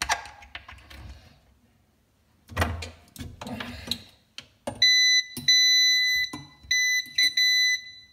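A multimeter's continuity beeper sounds four times with a steady high-pitched beep from about five seconds in, as its probes touch the bonded copper pipes. The beeps show that the equipotential bonding between the pipes is continuous. Before them come clicks and rubbing as the probes are handled and placed.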